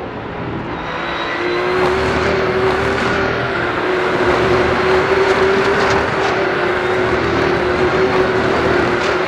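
A pack of Porsche 911 GT3 Cup race cars running through a corner, their flat-six engines blending into a dense mass of engine noise. One engine's note stands out, held steady from about a second in, and the sound builds over the first two seconds.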